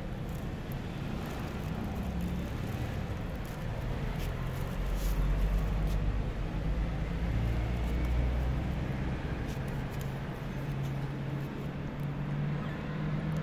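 Steady low rumble of a motor vehicle engine running, with a faint hum that rises slightly in pitch near the end.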